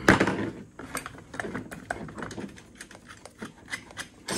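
Small, irregular metallic clicks and ticks of a hand tool backing the two screws out of an old GM starter motor, with a louder knock right at the start.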